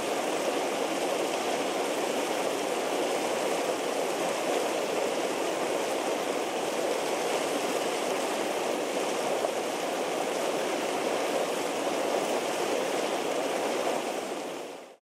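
Hot spring vent bubbling and gushing up through gravel and stones, a steady rush of churning water that fades out near the end.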